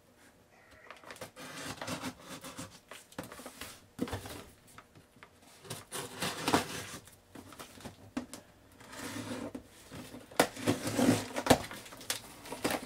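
Box cutter slicing along the packing tape of a cardboard shipping box, with irregular scraping and rustling. Near the end the cardboard flaps are pulled open with a few sharp knocks.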